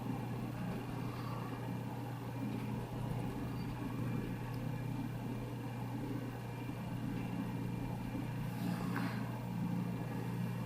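Steady low hum with faint background noise, and a soft brief swish about nine seconds in.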